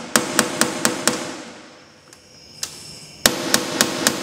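Claw hammer tapping a tight-fitting cast aluminum rivet nut down into a drilled hole in an aluminum boat deck: quick light strikes about four a second, each with a short metallic ring. The strikes stop for about two seconds in the middle and then start again.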